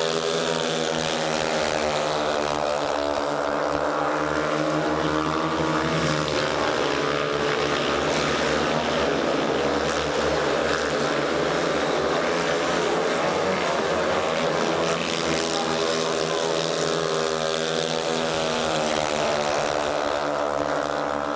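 Several 500 cc single-cylinder speedway bike engines running hard together in a race, their pitch rising and falling as the riders throttle through the bends and along the straights.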